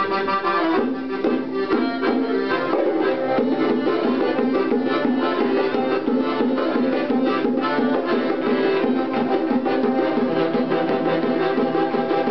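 Klezmer band playing live: accordion, saxophone, bassoon and violin over a hand drum, in a steady, continuous tune.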